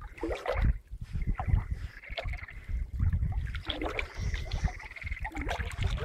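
Water splashing and lapping in uneven strokes close to the microphone as a Siberian husky swims, with wind rumbling on the microphone.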